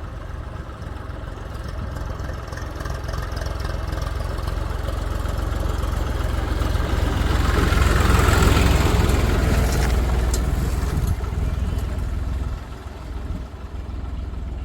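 Heavy machine's diesel engine running, growing steadily louder to a peak a little over halfway through, then dropping back near the end.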